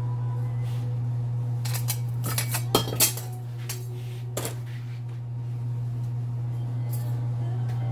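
Metal clinking and clanking as a furnace blower motor is pried apart with hand tools: a quick cluster of sharp knocks a couple of seconds in, a single one a little later and lighter taps near the end, over a steady low hum.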